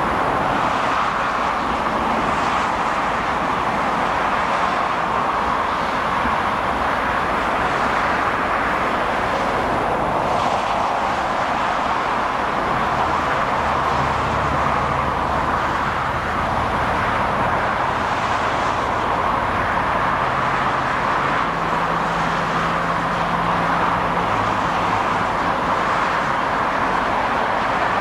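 Steady roar of freeway traffic, with a freight train rolling by on the tracks beside it. From about halfway through, the low drone of approaching BNSF diesel locomotives joins in.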